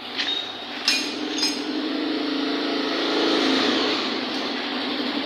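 A motor vehicle's engine running close by, swelling to its loudest a little past the middle and then easing off. Two sharp metal clinks come about a second in.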